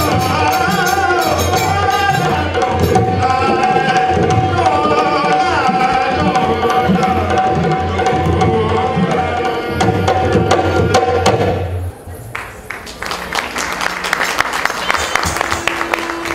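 Rajasthani folk music: a dholak drum beating a steady rhythm under a held drone and a wavering melody. It stops abruptly about twelve seconds in and gives way to clapping, then a new held note starts near the end.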